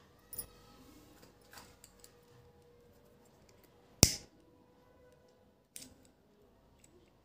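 A pocket lighter struck once about four seconds in: a sharp, loud click with a short hiss after it. Around it, faint clicks of plastic beads and cord being handled, and another sharper click near the end.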